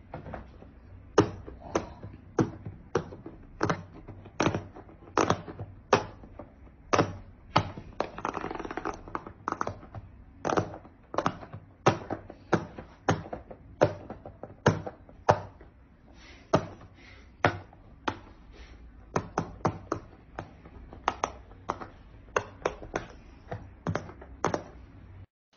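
Silicone bubbles of a large pop-it fidget toy being pressed in by fingers one after another: a run of short, sharp pops, about two a second, some in quick pairs.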